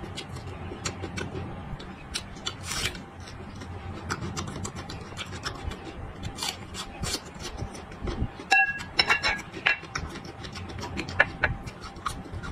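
Close-miked chewing of raw red onion and garlic: irregular crisp crunches and wet mouth clicks, with a brief high squeak about two-thirds through.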